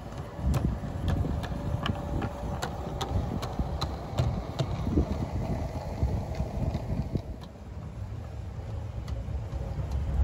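A garden-scale model diesel locomotive and wagons running on outdoor track. The wheels click rhythmically over the rail joints, about two to three clicks a second, spacing out after the middle, over a faint steady motor hum. A low rumble runs underneath.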